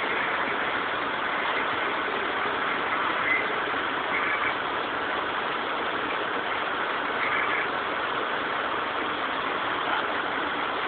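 Terex Reedrill drill rig running with a steady, even machinery noise from its engine.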